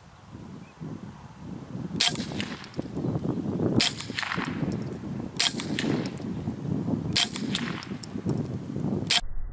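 Five shots from a Magnum Research semi-automatic .22 LR rifle, fired at a steady pace about one every two seconds, starting about two seconds in. Each crack is followed by lighter metallic clicks.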